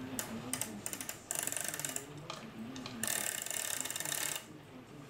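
Cuckoo clock chain being pulled through the clock movement by hand, the chain wheel's click ratcheting rapidly in two runs, the second longer.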